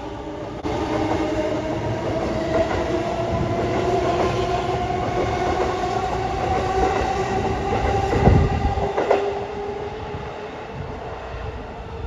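Keihin-Tohoku Line E233 series electric train running by on the adjacent track: a steady electric motor whine that rises slowly in pitch, with a few clacks of wheels over rail joints and a thump about eight seconds in.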